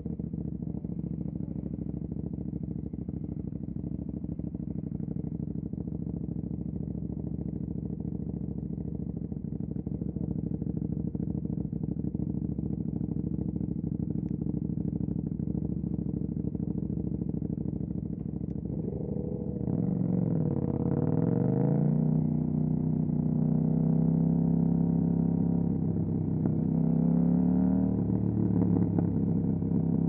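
2018 KTM 790 Duke's parallel-twin engine through an Austin Racing RS22 exhaust, running at steady revs. About two thirds in, the revs drop sharply and climb again, and they keep rising in steps toward the end as the bike accelerates.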